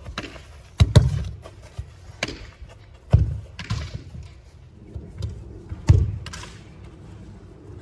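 A soccer ball kicked hard three times, about two and a half seconds apart, each a sharp thump, with lighter thuds of the ball landing and bouncing in between.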